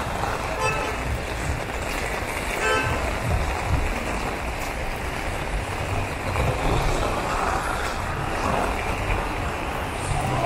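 Heavy rain falling steadily on wet pavement, with wind buffeting the microphone. Two short beeps sound in the first three seconds.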